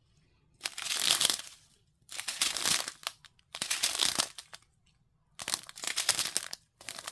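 Small plastic bags of square resin diamond painting drills crinkling as they are handled, in four or five bursts about a second long with short pauses between.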